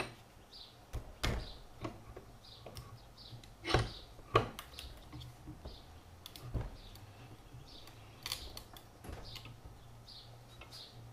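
Scattered clicks and knocks of small parts being handled on a wooden workbench, the loudest two around four seconds in. Behind them, a bird chirps over and over, about once every three-quarters of a second.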